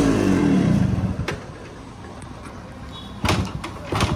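Two sharp clunks near the end, about a second apart, typical of a Yamaha RX100's kick-starter being kicked over with the choke pulled and the fuel tap on; no engine running is heard. A voice trails off in the first second.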